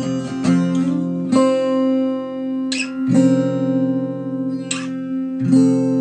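Acoustic guitar playing slow strummed chords, about four strums each left to ring for a second or more, as the closing instrumental bars of a folk song.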